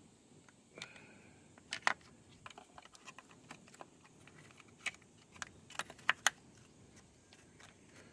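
Irregular light clicks and taps, a dozen or so spread over several seconds, with the sharpest ones just before two seconds in and a quick pair around six seconds.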